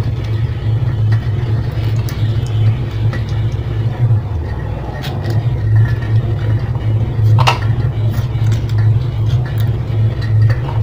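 A steady low hum runs throughout, with a few faint clicks and rustles from hands handling a fish and lemongrass stalks; one sharper click comes about seven and a half seconds in.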